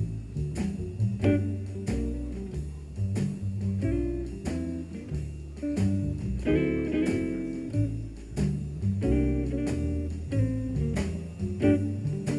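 Guitar-led music with deep, sustained bass notes and sharply plucked notes, played back through MartinLogan Neolith electrostatic loudspeakers and heard in the room.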